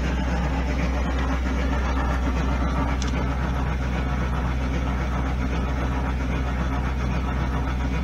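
Detroit Diesel 6V92 two-stroke V6 diesel idling steadily just after a cold start in freezing weather, heard close to its exhaust pipe while it pours thick white smoke.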